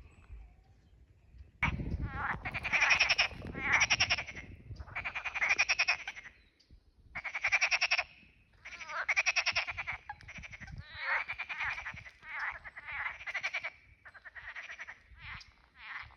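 Frogs croaking: repeated rattling calls, each about half a second to a second long, starting about two seconds in and going on one after another with short gaps.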